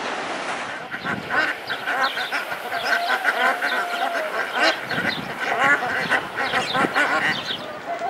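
A flock of domestic ducks quacking in many short, overlapping calls, starting about a second in.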